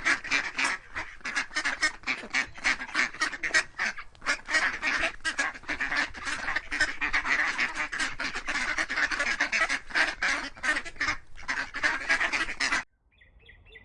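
A flock of waterfowl calling, with many rapid, overlapping calls; the sound cuts off suddenly near the end.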